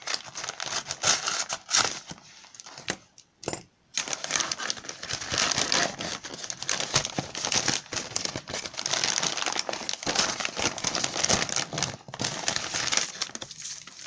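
Brown paper mailer envelope being torn open and the plastic packaging inside crinkling as the contents are pulled out, with a brief pause about three seconds in.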